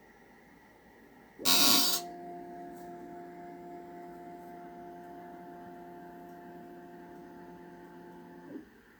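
A short loud burst of hiss about a second and a half in, then a steady electrical hum of several fixed pitches that runs for about seven seconds and cuts off near the end.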